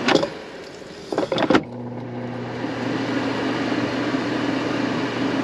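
Air fryer being closed and set: a knock and a quick run of clicks, then the air fryer starts running with a steady hum about a second and a half in.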